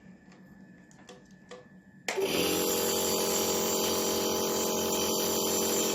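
A few light clicks, then a compressor nebulizer's small motor switches on about two seconds in and runs with a steady hum.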